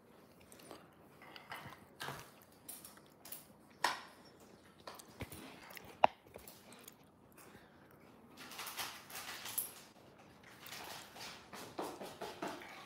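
Quiet, scattered taps and clicks of plastic toy moulds and dough tubs handled on a hard countertop, with one sharper click about six seconds in and soft rustling in the second half.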